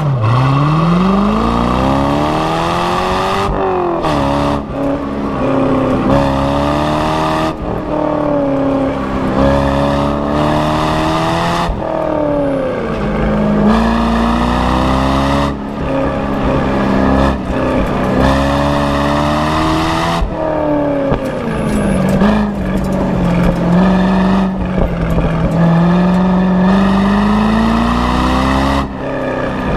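Corvette V8 engine pulling hard through an autocross run. It launches from the line with its pitch climbing steeply, then rises and falls again and again as the throttle is lifted and reapplied between cones.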